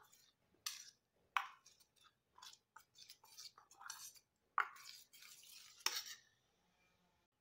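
Metal spoon stirring sambar powder into thick ground coconut paste in a stainless steel bowl. Faint, irregular scrapes and clinks of the spoon against the bowl stop about six seconds in.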